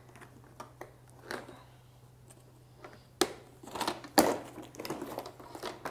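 Scattered clicks and knocks of a hard plastic toy kitchen case being unlatched and opened, with two louder knocks about three and four seconds in.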